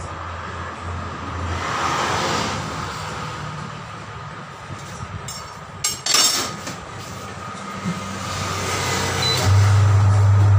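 Metal knocks and a clatter about six seconds in as a tyre is handled on a tyre-changer machine, then the machine's motor starts about a second before the end with a steady low hum.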